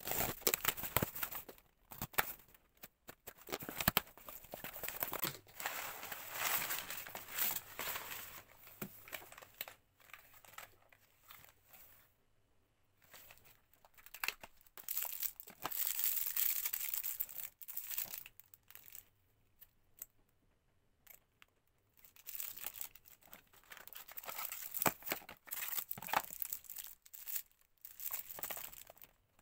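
Packaging crinkling and tearing as it is handled by hand, in several bursts of a few seconds with quieter gaps between, dotted with sharp clicks.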